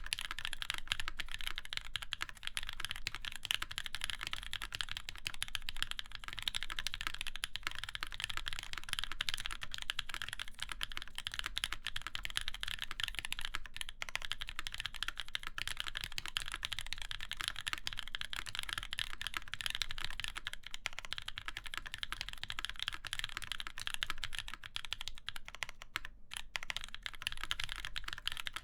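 Continuous fast typing on a Keycult No. 2 mechanical keyboard with lubed, broken-in NK Cream linear switches in a full aluminium plate under GMK keycaps: a dense, unbroken run of key strikes with one brief pause near the end.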